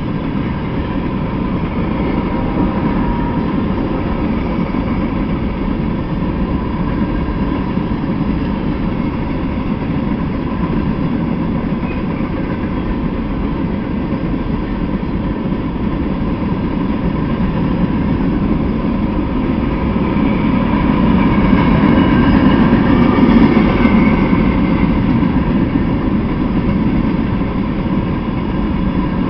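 Freight train of covered hopper cars rolling past: the steady noise of steel wheels on the rails, growing louder for a few seconds about twenty seconds in.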